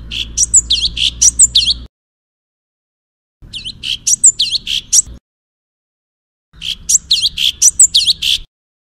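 A songbird's quick, high phrase of sharp notes and sweeping whistles, about two seconds long, played three times with pauses of about a second and a half between. The repeats are identical: a looped song recording. A low recording noise comes and goes with each phrase.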